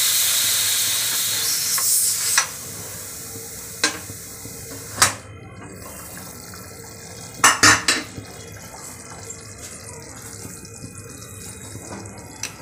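Pressure cooker letting out its remaining steam with a hiss as the whistle weight is held up, the hiss fading away over the first two seconds or so. Then a few sharp metal clinks and clanks as the lid is worked free and lifted off, the loudest cluster a little past halfway.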